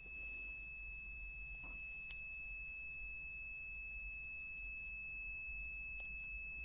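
Continuity buzzer of a HABOTEST HT122A pen-type digital multimeter giving one continuous, steady high-pitched beep, the sign that the test leads are touching a closed circuit.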